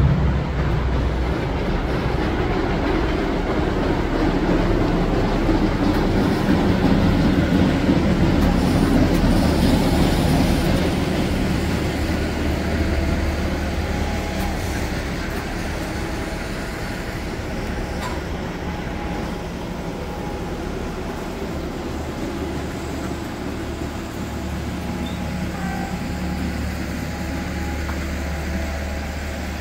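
Electric passenger train running along the track, a steady rumble of wheels on rail that grows louder over the first ten seconds or so and then eases off.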